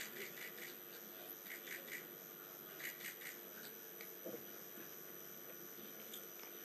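Faint hall room tone: a steady low hum with scattered faint clicks and murmurs.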